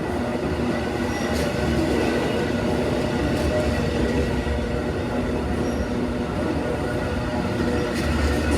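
Amtrak Auto Train's rail cars rolling past steadily with a low rumble, and a few sharp wheel clicks over the rail joints.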